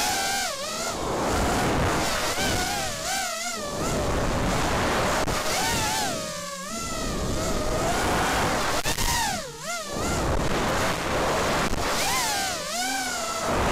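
The four Cobra 2204 2300kv brushless motors of an Armattan F1-4B racing quadcopter, spinning DAL 4-inch three-blade props, whining in flight, their pitch swinging up and down with the throttle and dropping away sharply about every three seconds, over rushing wind on the onboard camera's microphone.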